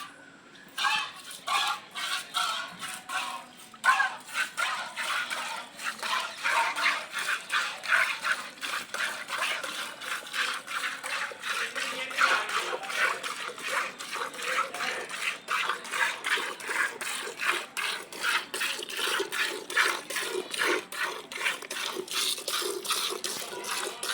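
A cow being milked by hand, with streams of milk squirting into a pail in a steady rhythm of a few squirts a second.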